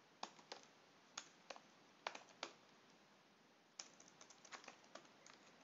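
Faint computer keyboard typing: separate keystrokes spaced out at first, then a quicker run of keystrokes near the end.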